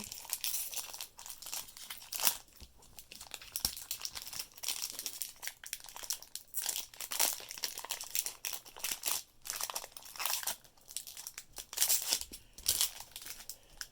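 Foil Pokémon booster pack wrapper crinkling as it is torn open and handled, in irregular rustling bursts.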